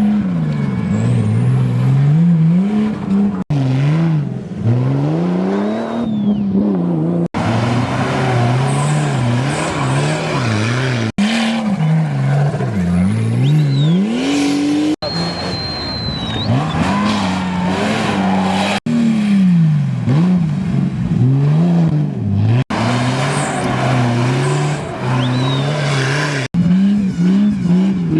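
Off-road race vehicle engines revving hard, pitch climbing and dropping with throttle and gear changes. The audio comes in short clips that cut abruptly every few seconds.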